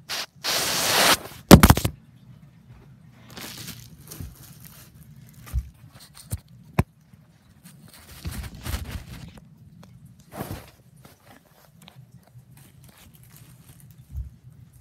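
Close handling noise of a tablet being picked up and moved about: a loud rustle and scrape against the microphone about half a second in, then a couple of sharp knocks. Fainter rustles and single clicks follow.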